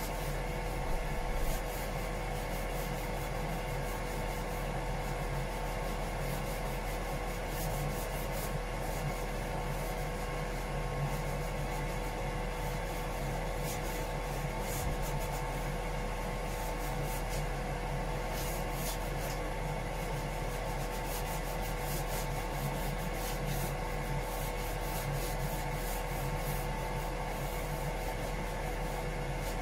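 Hand sanding of the engine-room bilge ahead of topcoat: irregular scratchy rubbing strokes that come in bursts. Under them runs the steady hum of engine-room machinery, with a constant tone.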